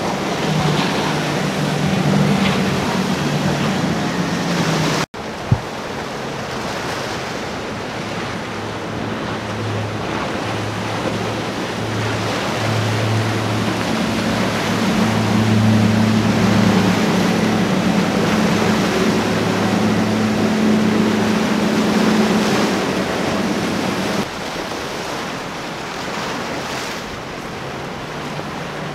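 Boston Whaler center-console boats running fast through surf, their engines a steady low drone over the rush of breaking water and wind on the microphone. A sudden dropout about five seconds in marks a cut, then another boat's engine drone swells to its loudest near the middle and drops away about four seconds before the end.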